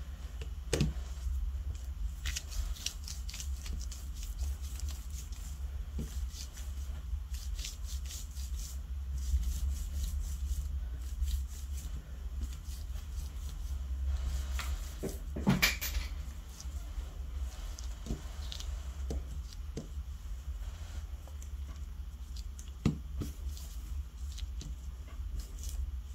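Soft handling noises of hands rolling and pressing a rope of two-part mold putty on a plastic sheet, with faint scattered clicks and crinkles, over a steady low hum. One sharper click about fifteen seconds in.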